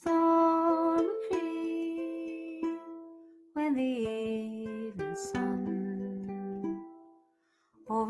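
Strummed ukulele under a held, wordless melody line. It comes in two long phrases, with a short break about halfway through.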